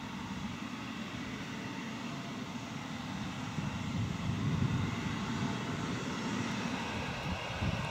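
Bombardier CRJ regional jet's two rear-mounted GE CF34 turbofans running at low taxi power as the jet rolls closer: a steady whine with several high tones over a low rumble that grows louder about four seconds in.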